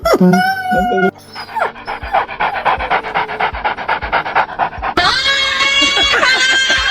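Dog panting fast in a quick, even rhythm, with music coming in about five seconds in.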